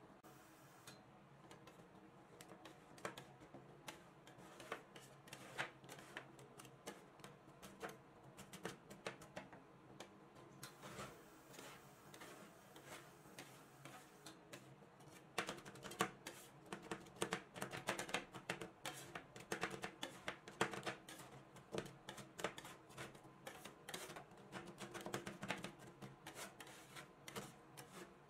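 Two metal spatulas chopping and scraping on the steel cold plate of a rolled-ice-cream pan, working a poured cream base as it freezes: quick, irregular metal taps and scrapes that begin about a second in and grow faster and louder about halfway through.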